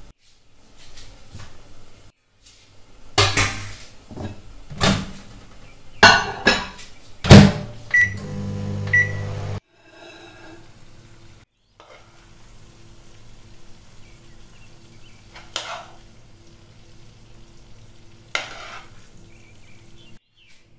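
A series of knocks and clatter of dishes, then a microwave oven beeping twice, about a second apart, as it starts running with a hum that cuts off suddenly. After that comes a quieter steady hum with two brief scraping sounds.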